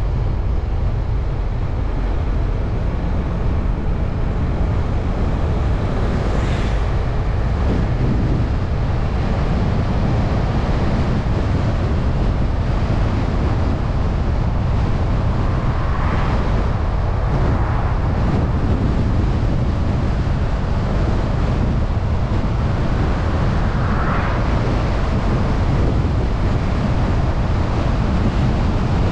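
Steady road and wind noise from a moving car: a constant low rumble with a hiss on top. It swells briefly three times, about a quarter, halfway and four-fifths of the way through.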